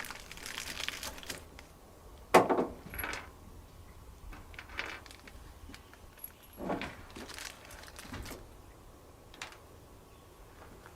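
Scattered clinks and knocks of hose fittings and parts being handled during an installation, the loudest a sharp knock about two and a half seconds in.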